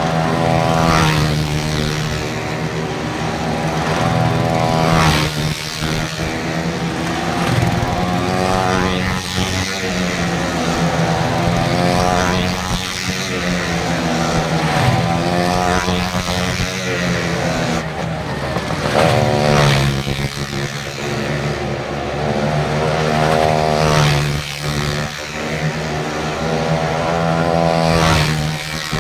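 Motor engines running hard, their pitch rising and falling in repeated sweeps every three to five seconds over a steady low drone.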